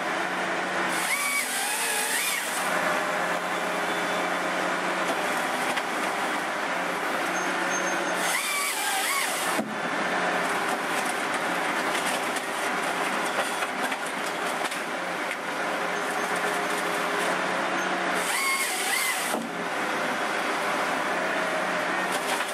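Excavator's diesel engine running steadily under load as its tree-felling grapple head works, with three short bursts of high hissing and a rising-and-falling whine from the hydraulics: about a second in, around eight seconds in, and around eighteen seconds in.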